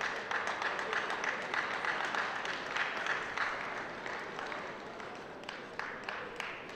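Arena crowd applauding, a dense patter of many hands clapping that slowly dies down.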